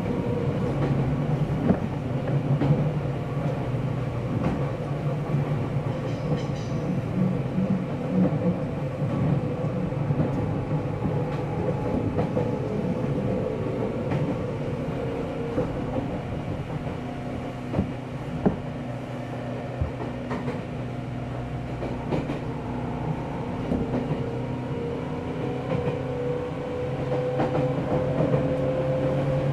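Running sound inside a Seibu 4000 series resistor-controlled electric train car: a steady motor and gear whine over wheel and track noise, with scattered clicks of rail joints. The whine sags a little mid-way and rises again toward the end as the train picks up speed.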